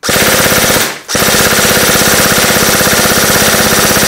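G&G UMG airsoft electric gun (UMP replica), a stock gearbox with no electronic trigger unit, running on an 11.1 V LiPo, firing full-auto: a short burst of about a second, a brief pause, then a long continuous burst at a high rate of fire.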